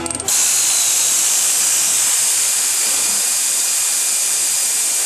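Air-powered tool running with a loud, steady hiss of exhaust air, starting just after a brief sputter, while the front shock bolts are being taken out.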